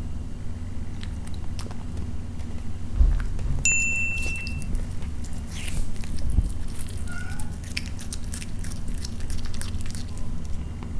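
Cat chewing and licking small pieces of meat and fish off a wooden board, a run of small clicks, over a steady low hum. About four seconds in, a short high chime sounds once.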